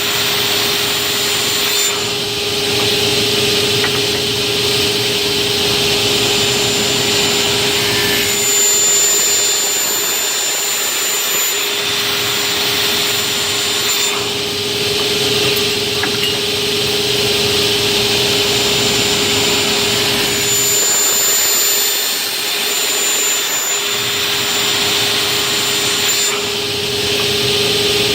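Automatic aluminium cutting saw running with a steady whine. Its noise changes in a cycle that repeats about every twelve seconds as it works through repeated cuts.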